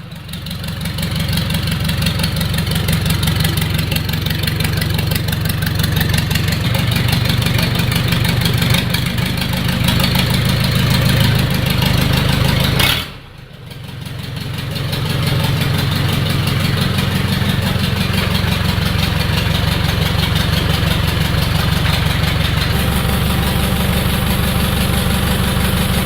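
Nissan ZD30 four-cylinder diesel engine idling with a steady, even pulse, running on an injection pump converted from electronic to manual control. The sound drops away sharply about halfway through and comes back over a couple of seconds.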